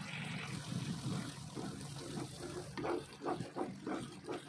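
Spice paste sizzling in oil in a non-stick pan, being fried until the oil separates. From about three seconds in, a wooden spatula stirs and scrapes it in a run of quick strokes.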